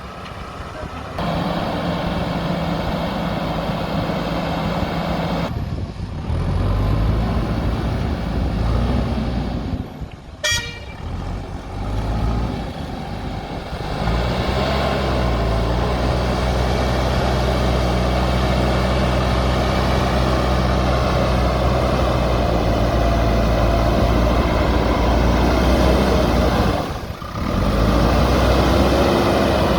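JCB backhoe loader's diesel engine running under work with a steady, loud engine note and a whine of higher tones on top. The sound breaks off and changes abruptly about 5, 10 and 27 seconds in.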